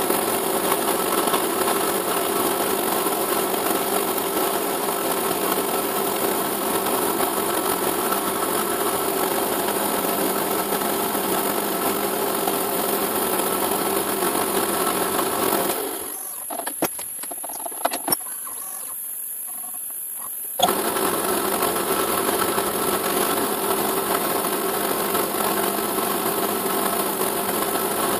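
CNC milling machine running while drilling holes in a perspex sheet, a steady mechanical buzz with a hiss from its stepper motors. About sixteen seconds in it goes quieter for a few seconds, with a few clicks, then starts up again.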